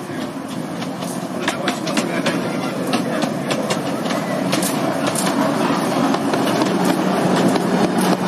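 Miniature railway train, a diesel-outline locomotive hauling passenger riding cars, running past at low speed. Its wheels click over the rail joints above a running rumble that grows louder as it comes closer, and a steady hum joins near the end.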